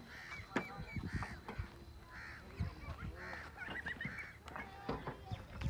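Fowl honking repeatedly, a short call every half second or so, with low thumps in between.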